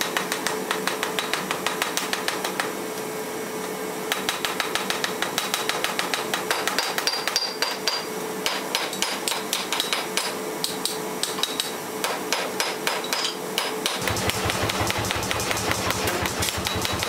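Rapid blows of a hand hammer on a red-hot piece of metal lying on a steel anvil, about five a second, in runs with short pauses between them.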